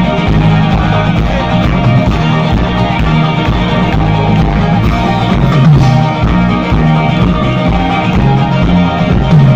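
Live rock band playing loudly through a concert PA, with electric bass and guitars and a strong, moving bass line.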